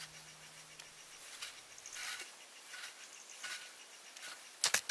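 A metal-bladed shovel digging into snow, with soft crunching scoops every half-second to second, then two sharp clicks close together near the end.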